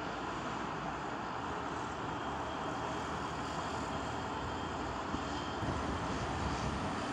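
Diesel engine of a rail-handling boom truck running steadily, its low rumble growing a little stronger near the end.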